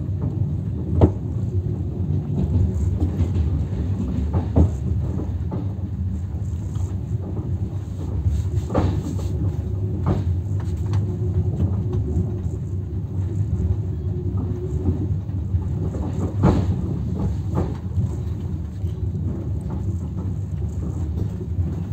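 Steady low rumble of a vehicle in motion, heard from inside, with a few sharp knocks at irregular intervals.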